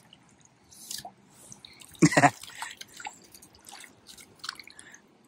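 Light, scattered water drips and small splashes at the river surface close to the microphone. A short, loud voiced exclamation breaks in about two seconds in.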